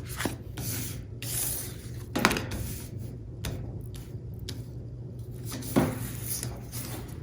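Tarot cards being shuffled and handled, rustling, with a few knocks of the cards or deck against the table, the loudest about two seconds in and near six seconds.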